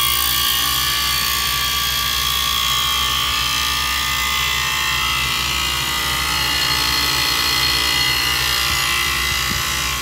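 Refrigeration condensing unit running steadily, its compressor humming and condenser fan blowing, with a few constant tones over the noise. It runs with its failed low-pressure switch bypassed, which shows the switch was what kept it off.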